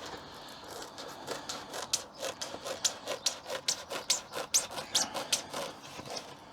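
Hands working a strip of sound-deadening insulation material, making a run of short scratchy rubbing strokes, about two to three a second.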